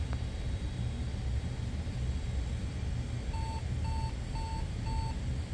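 Compaq Presario 4112's PC speaker sounding four short, even beeps about half a second apart, over the steady low hum of the running computer. These are POST error beeps: the machine goes on to show errors 162 and 163, which generally indicate CMOS settings that need updating, possibly because of a dead CMOS battery.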